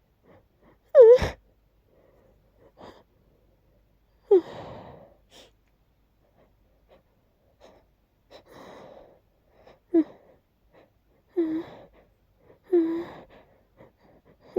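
A person sneezing and building up to sneeze again: a loud, sudden sneeze about a second in, then a string of short, voiced, gasping in-breaths a second or two apart as the next sneeze builds.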